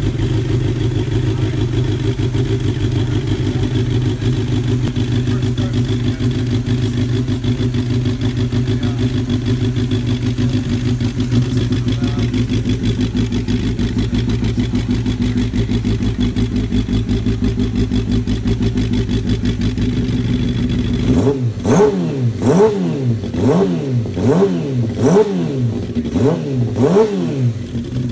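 1994 Suzuki GSX-R 750's inline-four engine running on newly fitted ignition coils. It idles steadily, then about two-thirds of the way through it is blipped about seven times, each rev rising and falling roughly once a second, before it settles back to idle near the end.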